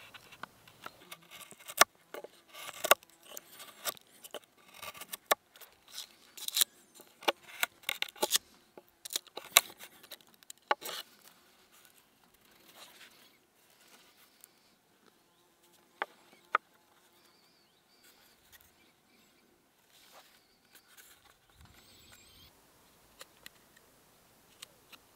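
Knife cutting into a wooden pole: a quick, irregular run of sharp cuts and chips for about the first ten seconds, then sparser, quieter cuts.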